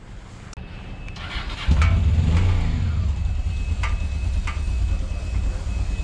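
Honda Dominator motorcycle engine started, catching a little under two seconds in, then idling with a steady low rumble.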